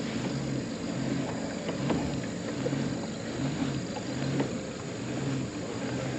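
Kayak pedal drive humming in short pulses, about two a second, in step with the pedal strokes, as the kayak tows another boat on a rope; wind and water hiss underneath.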